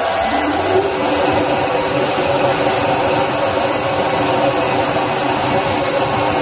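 iKier K1 Pro Max diode laser cutter running a cut in 1 cm wood, its built-in air assist blowing: a steady hiss with an even hum under it.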